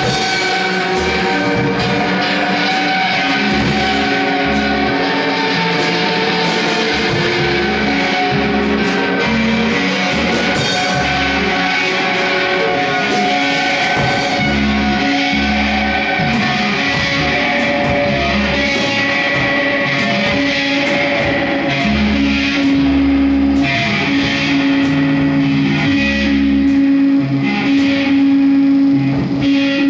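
Live improvised noise music: electric guitars and tabletop electronics play held, droning tones over low notes that change every second or so. It grows a little louder in the last several seconds.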